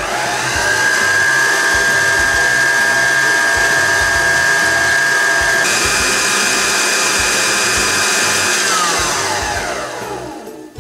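Electric stand mixer beating cream with a wire whisk in a steel bowl: the motor spins up to a steady whine, steps up to a higher pitch a little past halfway as it is switched from medium to high speed, then is switched off and winds down with a falling whine near the end.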